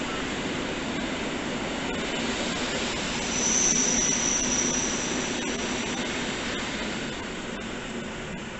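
Train passing: a steady rumble and hiss of wheels on rails, swelling about three seconds in with a high, steady whine for a few seconds, then easing off.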